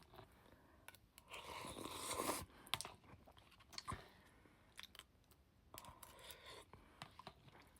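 A person chewing and eating instant noodles, quietly, with small mouth clicks. There is a louder noisy stretch of about a second, around a second and a half in.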